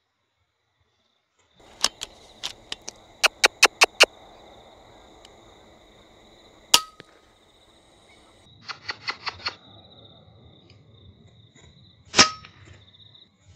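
Two sharp shots from an FX Impact M3 .22 PCP air rifle, about five seconds apart, each with a short metallic ring. Between them come quick runs of sharp clicks, over a steady high trill.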